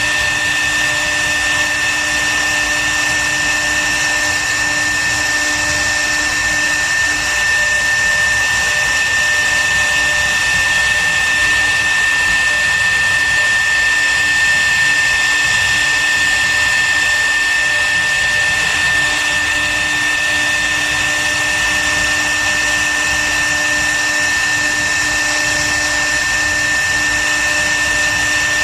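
CNC wood router's spindle motor running at constant speed with a steady high whine over a hiss of cutting noise.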